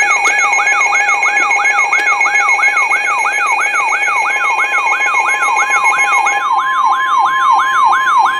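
Electronic emergency alert tone: a siren-like tone falls in pitch over and over, about three times a second, over several steady high alarm tones. A little past six seconds in, the steady tones give way to a single steady tone while the sweeping carries on.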